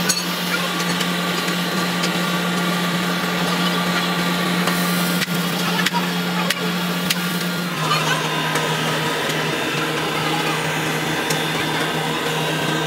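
Steady motor hum over a rush of forced air, typical of the electric air blower that feeds a foundry cupola furnace while molten iron is tapped. The hum drops slightly in pitch about eight seconds in.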